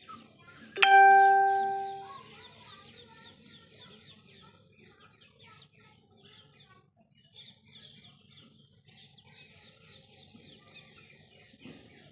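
Desi chickens calling, with many small high peeps throughout. About a second in, one loud, sudden ringing tone fades away over about a second.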